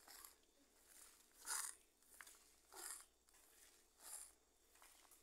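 Hands kneading soft bread dough on a table: four faint pushing and rubbing strokes about a second and a quarter apart, the loudest about a second and a half in.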